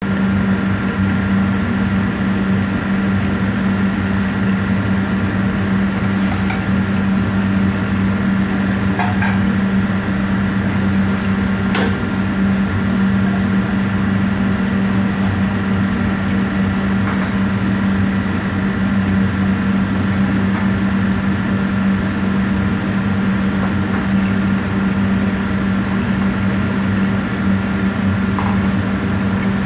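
Steady, loud hum of kitchen machinery with a low drone, broken by a few light knocks or clinks about six, nine and twelve seconds in.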